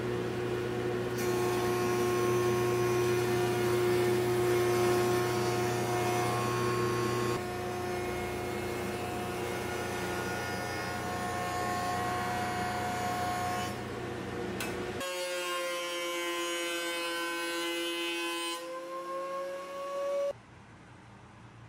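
Jointer running as a block of African blackwood is pushed across its cutterhead, a steady machine drone with a low hum. About 15 s in it gives way to a benchtop DeWalt thickness planer running at a different pitch, which cuts off suddenly about 20 s in.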